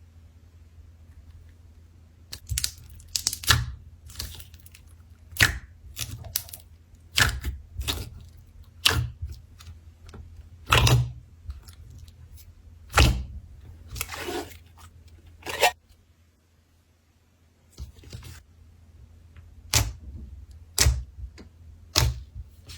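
Slime being squeezed and pressed by hand, making irregular sharp pops and crackles, with a short pause after the middle.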